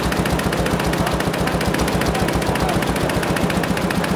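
Industrial multi-needle embroidery machine stitching at speed: a rapid, even clatter of needle strokes that runs on without pause.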